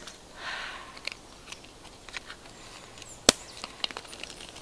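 Soft rustling and scattered small clicks from small bags and gear being handled, with one sharp click a little over three seconds in.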